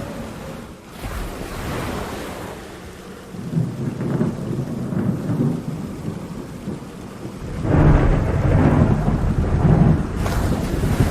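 Thunder rumbling over steady rain and a rough sea in a storm: a lower roll a few seconds in, then a louder, longer roll about eight seconds in.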